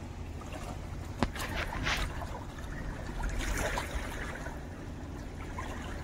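Steady low outdoor rumble with a faint hiss at the river's edge. A single sharp click comes about a second in, and faint rustles follow as hands work bait onto a fish hook.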